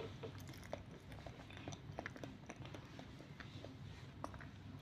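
Someone chewing a mouthful of banana: faint, scattered wet mouth clicks.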